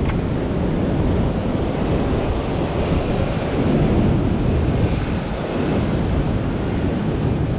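Ocean surf breaking and washing over a rocky sea ledge, a steady rushing wash, with wind buffeting the microphone.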